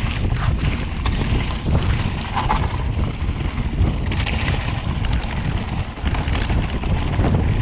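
Wind buffeting the microphone of a chest-mounted camera over the rumble and clatter of mountain-bike tyres rolling down a rough, wet, stony track.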